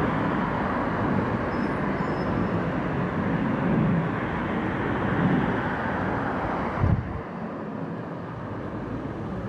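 Boeing 777-212ER jet engines giving a steady, broad rumble as the airliner rolls out on the runway after touchdown. About seven seconds in there is a brief thump, and the noise is a little quieter after it.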